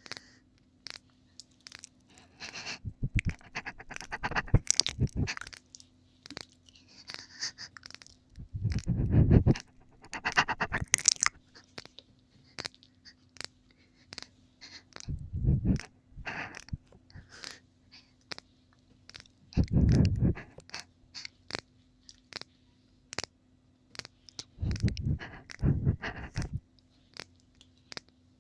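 Close-miked ASMR ear-licking mouth sounds: many small wet clicks and smacks, with heavier breathy bursts every four to six seconds. A faint steady hum runs underneath.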